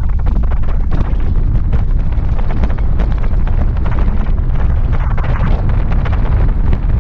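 Wind buffeting a bike-mounted camera's microphone as a mountain bike rides fast over a rough dirt road, a loud steady rumble. Frequent short knocks and rattles come from the bike jolting over the bumps.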